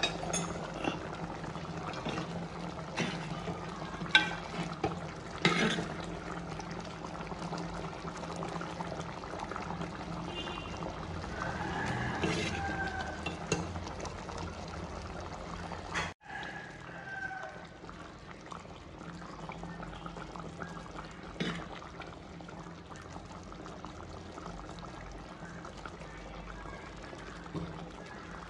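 Chettinad shark fish kulambu bubbling in its pot, a steady liquid sound. A few sharp clicks are heard, and the sound cuts out for an instant about sixteen seconds in.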